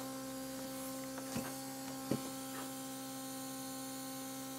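Single-speed portable makeup airbrush compressor humming steadily while the airbrush is in use, with a couple of faint clicks about a second and two seconds in.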